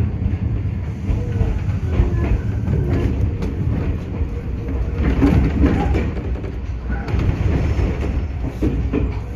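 Iyo Railway 3000 series electric train running along the track, heard from inside the car: a steady low rumble with wheel clicks over the rail joints.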